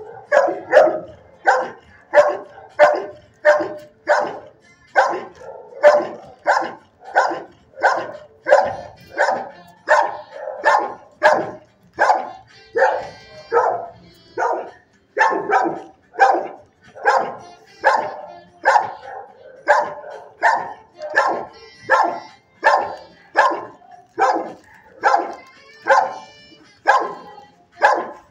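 Dog barking over and over in a steady, even rhythm, about two barks a second.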